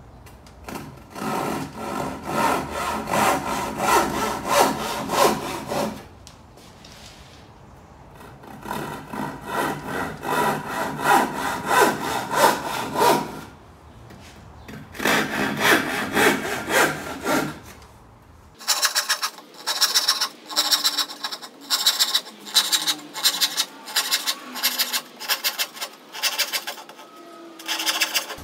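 Handsaw cutting into a wooden board with steady back-and-forth strokes, about two a second. The strokes come in four runs with short pauses between. He is sawing a row of kerfs for a housing joint.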